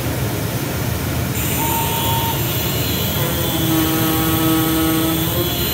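IECHO flatbed digital cutting machine running with a steady mechanical whirr. A pitched motor whine comes in briefly about a second and a half in, and again from about three seconds in as the tool-head carriage travels across the table.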